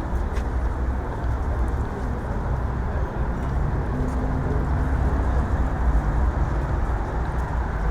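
Steady city street traffic noise, a continuous low rumble of passing vehicles, with one engine's hum standing out for a couple of seconds midway.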